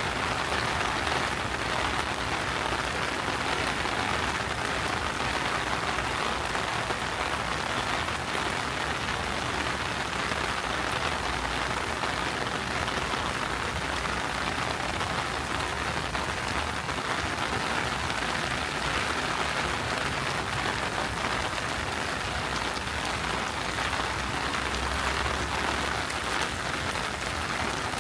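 Steady summer rain falling, an even hiss of drops that holds constant throughout.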